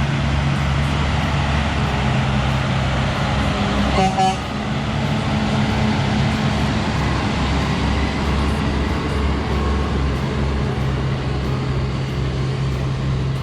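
Diesel engine of a 2001 Western Star tractor unit idling steadily. A brief higher-pitched tone sounds about four seconds in.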